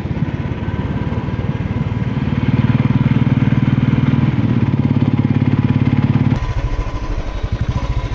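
Motorcycle engine running while the bike is ridden, heard from the rider's seat with an even pulsing beat. It grows louder about two seconds in, then drops back sharply near the end.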